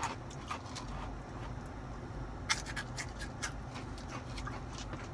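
Scattered soft clicks and crackles of takeout food being handled and crunchy fried batter bits being eaten, with one sharper click about two and a half seconds in, over a low steady hum.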